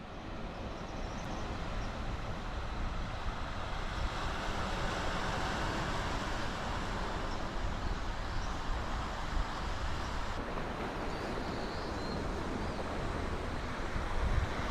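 Outdoor wind with a steady rushing noise. Gusts buffet the microphone with a low rumble, growing stronger near the end.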